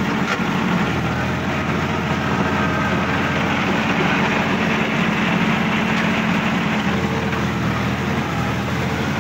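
Sonalika DI-50 RX tractor's diesel engine running steadily as the tractor works through a muddy paddy field, heard from the driver's seat.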